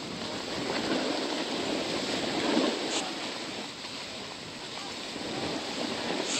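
Snowboard sliding down a groomed run, its base and edges scraping the packed snow in a steady rough hiss that swells about two and a half seconds in.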